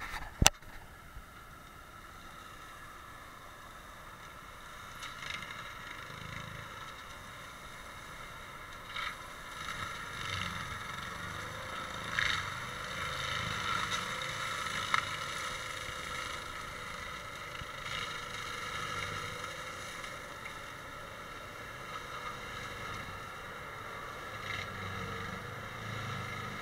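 Tractor engine and rear-mounted forestry mulcher running steadily, the spinning rotor whining as it grinds brush, with a few sharp knocks scattered through as it strikes wood.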